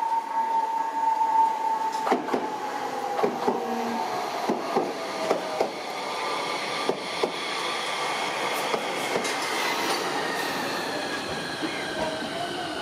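Tokyu Setagaya Line 300 series tram slowing as it pulls in. Its motors give a whine that slowly falls in pitch, and the wheels click and knock over the track, most often in the first half.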